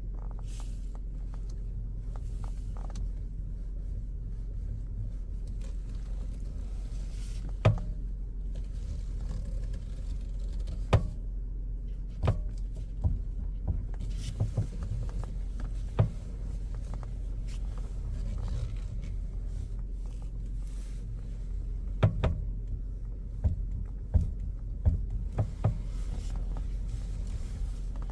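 Knocking in a Toyota Venza's steering: sharp single knocks at irregular intervals, several in quick succession near the end, over a steady low hum. The knocks are the steering fault being shown.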